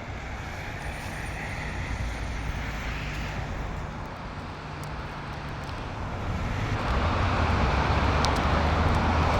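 Street traffic: a vehicle's engine hum and the rush of its passing, growing louder about six seconds in.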